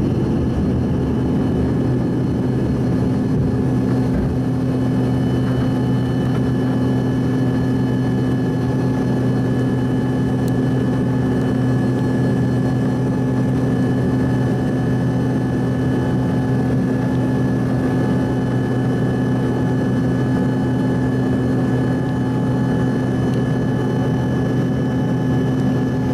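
Cabin noise of an Embraer ERJ-145LR at liftoff and the first climb: its rear-mounted Rolls-Royce AE 3007 turbofans at takeoff power. It is a steady rushing drone with two low hums and fainter high whines held over it.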